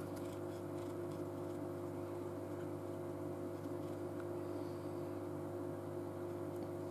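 Steady low hum, even in level and pitch.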